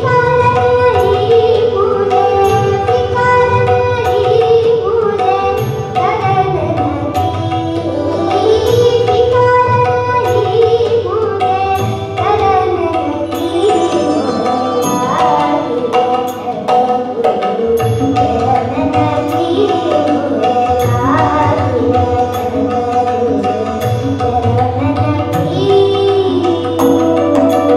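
Live Kannada sugama sangeetha (light classical) song: a boy's voice singing a gliding, ornamented melody, accompanied by harmonium and tabla keeping a steady rhythm.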